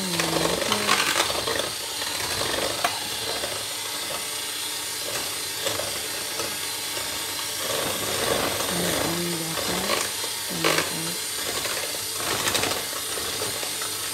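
Electric hand mixer running, its wire beaters whisking cake batter in a ceramic bowl, with a few sharp clicks.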